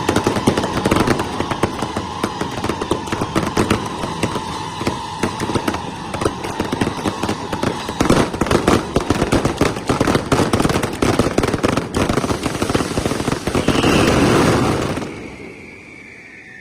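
Fireworks going off in a dense, rapid crackle of bangs that grows heavier about halfway through, peaks in a loud burst near the end, then stops suddenly.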